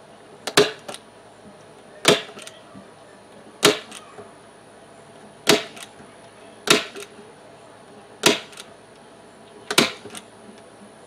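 Manual staple gun driving staples through screen into a wooden box: seven sharp snaps about every one and a half seconds, each followed by a fainter click.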